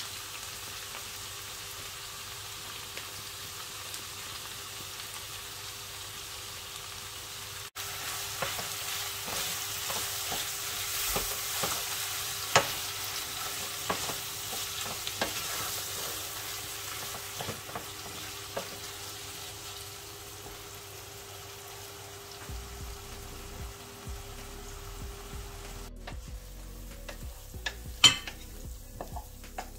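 Chicken and vegetables sizzling in a frying pan while tikka masala sauce is stirred in with a wooden spatula, with scrapes and taps of the spatula against the pan. Near the end come a few sharp clicks as the spatula scrapes the food out of the pan onto a plate.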